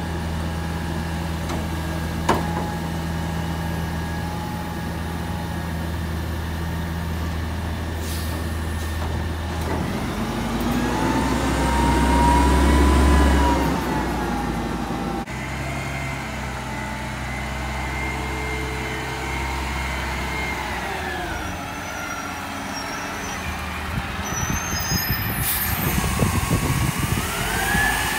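Diesel engine of a Peterbilt 320 Curotto-Can garbage truck idling steadily, then revving up about ten seconds in as the truck pulls away from the curb. After a cut, the diesel of a Mack LEU McNeilus Curotto-Can truck runs steadily with a higher whine, its revs rising and falling over the last few seconds.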